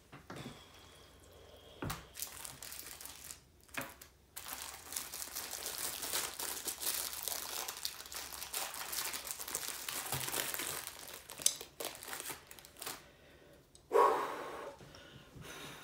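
Plastic food packaging crinkling and rustling as it is handled and opened, with a few sharp clicks. A brief louder knock comes near the end.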